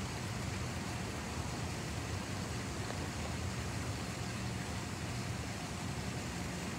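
Steady background rumble and hiss with no distinct event in it.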